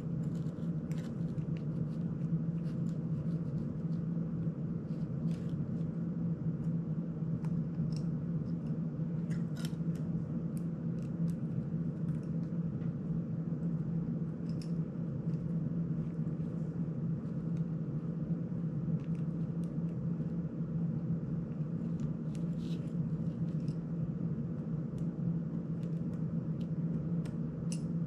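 Light, scattered clicks and ticks of a small screwdriver, screws and parts being handled on a small FPV drone frame, over a steady low hum.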